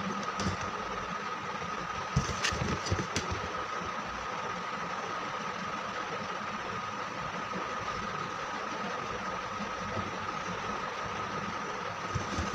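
Steady background hum and hiss with a faint high tone, with a few light clicks and taps in the first three seconds.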